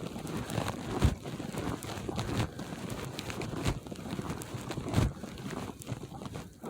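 Footsteps crunching in snow, an irregular run of crunches with two louder thumps, about a second in and about five seconds in, and wind on the microphone.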